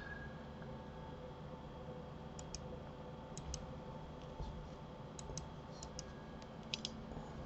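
Faint clicks of a computer mouse: about a dozen sharp clicks, many in quick pairs, in the second half. Under them runs a faint steady hum.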